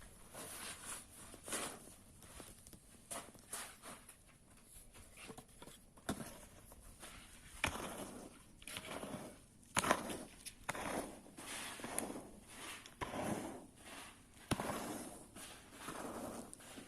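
Irregular rustling and scraping strokes, each about half a second long, with a few sharp knocks in between.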